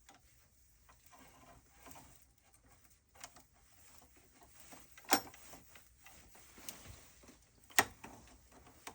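Faint handling noises of hands and tools working at a circuit breaker panel, with two sharp clicks about five and eight seconds in.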